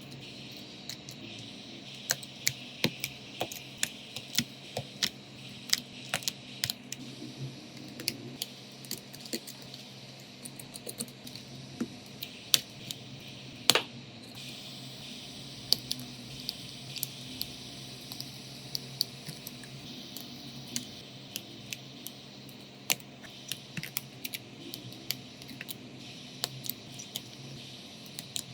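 Irregular light clicks and taps of small hand tools working on an iPhone 8 Plus, over a faint steady hum and hiss, with one sharper click about halfway through.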